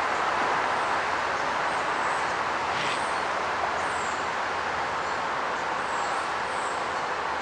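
Steady rushing noise of a railway station platform, with a few faint high chirps over it.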